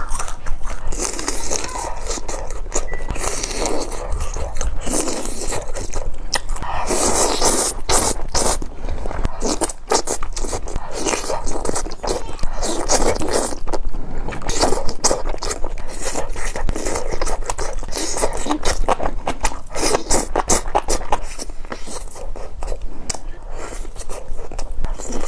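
Eating close to the microphone: a steady, dense run of crunching, crackling and scraping.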